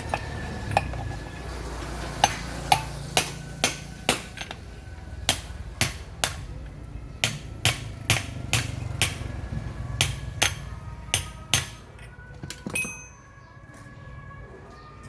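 Hammer striking metal: a run of about twenty sharp, ringing blows at roughly two a second, stopping about thirteen seconds in.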